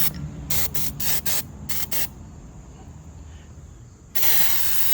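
Aerosol can of white lithium grease spraying, first in several short bursts and then in one longer burst near the end.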